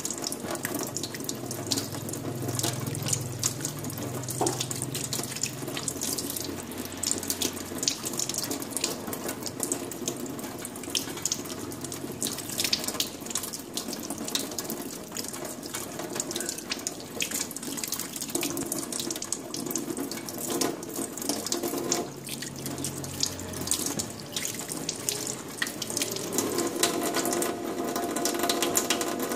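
Kitchen tap running steadily into a stainless steel sink, the stream splashing irregularly over hands that rub and rinse raw meat under it.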